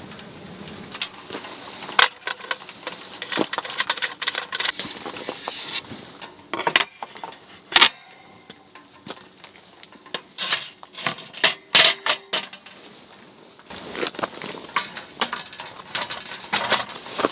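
Small hard objects, likely metal camp cookware and utensils, clinking and knocking as they are handled, in irregular clusters with some strikes ringing briefly.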